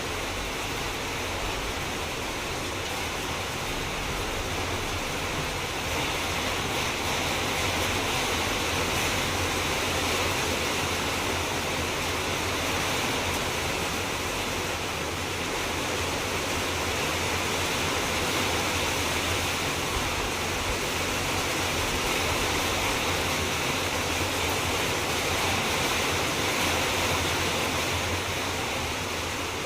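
Steady, even rushing noise that swells slightly in level without any clicks, tones or rhythm.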